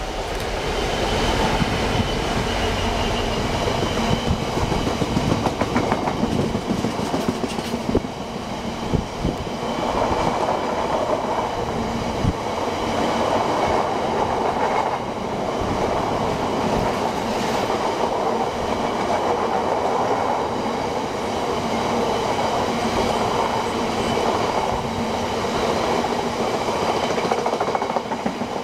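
Class 66 diesel-electric locomotive passing close by at the head of a loaded biomass train, followed by a long rake of bogie hopper wagons rolling past. For the first ten seconds or so the locomotive's engine and sharp wheel clatter dominate; after that it settles into the steady rolling noise of the wagons.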